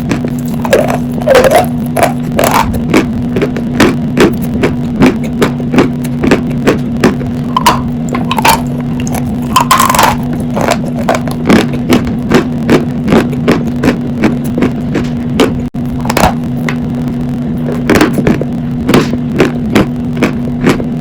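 Sawn chalk being bitten and chewed close to the microphone: a sharp crunch with each chew, about one or two a second, over a steady low hum.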